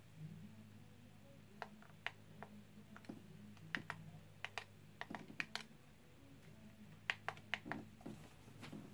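Plastic buttons on the Eton Zoneguard weather radio's keypad being pressed: a dozen or more sharp clicks, several in quick runs around the middle and near the end. A faint steady low hum sits underneath.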